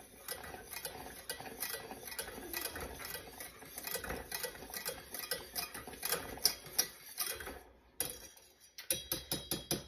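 Wire whisk stirring fast in a small metal saucepan of boiling, thickening mixture, its wires ticking quickly and steadily against the pan. The ticking stops briefly near the end, then starts again.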